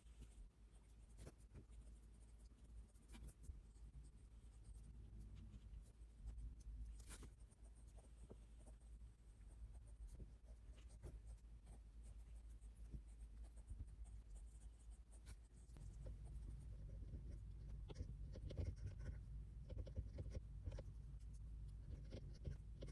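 Faint scratching and small taps of writing on paper, over a low room hum, getting busier and a little louder about two-thirds of the way through.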